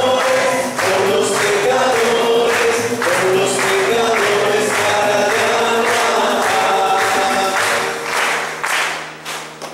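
A congregation singing a Spanish hymn to the Virgin Mary together, clapping along in time. The singing fades out near the end.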